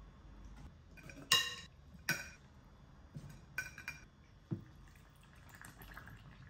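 A metal spoon clinking against glass as chopped cabbage and vegetables are scooped from a glass mixing bowl into a glass jar. There are two sharp, ringing clinks between one and two seconds in, then a few lighter clinks and knocks.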